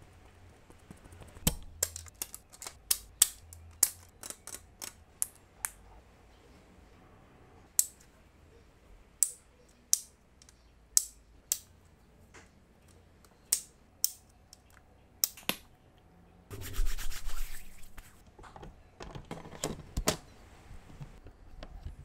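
Parts of a low-profile mechanical keyboard being handled and fitted together: a run of sharp, irregular clicks and snaps, a short scraping rustle about three-quarters of the way through, then a few more clicks.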